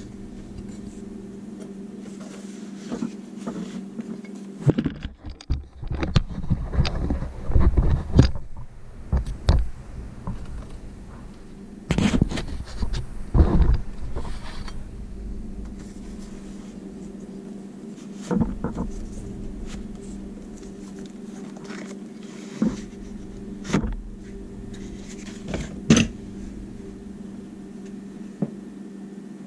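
Handling of a bowie knife and its tooled leather sheath: rustling, knocks and scraping, then a few single sharp taps, over a steady low electrical hum.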